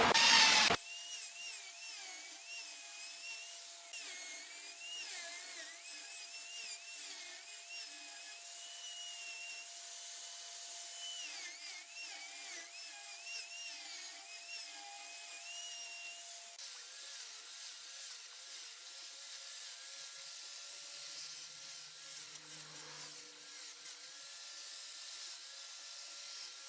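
Music cuts off just under a second in, then wood being worked on a turning lathe: a tool or abrasive rubbing against the spinning workpiece, a steady hiss with a wavering high squeal. The sound changes about two-thirds of the way through.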